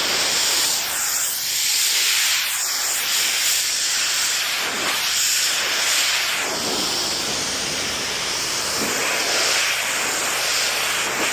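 Pressure washer spray hissing steadily against a surface, its tone shifting now and then as the spray moves.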